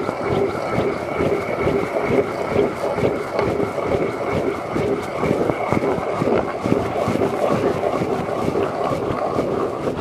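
Rapala hand ice auger being cranked through lake ice: a steady, gritty grinding and scraping of the blades cutting into the ice.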